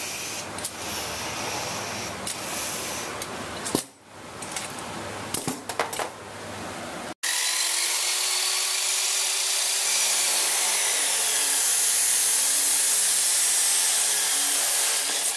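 Metal-cutting chop saw running and cutting through square steel tube, a loud, steady grinding noise through the second half. Before it, scattered clicks and rattles as the bolted steel-tube arm is moved by hand.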